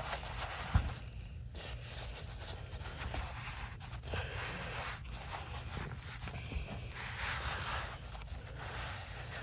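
Blue paper towel rubbed and scraped around the inside of a steel lawn mower wheel rim by a gloved hand: irregular scratchy wiping, with a soft thump about a second in. A low wind rumble on the microphone runs underneath.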